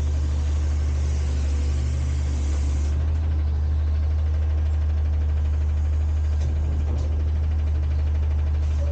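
Front-load garbage truck's engine running steadily with a deep drone. A hiss rides over it and stops about three seconds in.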